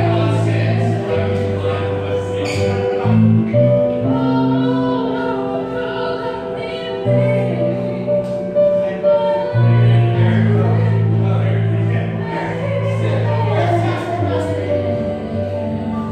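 Live neo-soul band: a woman singing over electric guitar and electric keyboard, with long held low chords underneath.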